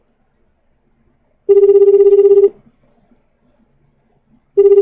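Telephone ringback tone from an outgoing call that is ringing and not yet answered. It is a pulsed, warbling ring about a second long that repeats every three seconds: once in full, and again starting near the end.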